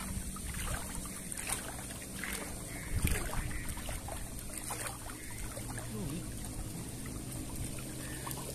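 Shallow river water swishing around a wader's legs over a steady outdoor rush, with a couple of faint knocks.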